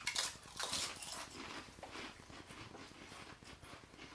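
Several people biting into and crunching whole Paqui ghost pepper tortilla chips at once. The crunching is loudest in the first second or so, then fades into quieter chewing.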